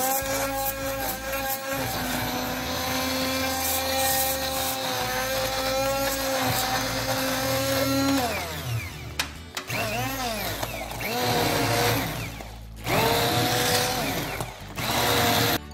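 Hamilton Beach immersion blender motor whirring steadily while puréeing cooked pinto beans. In the second half its pitch repeatedly swoops down and back up as it is worked through the thick beans, breaking off briefly twice.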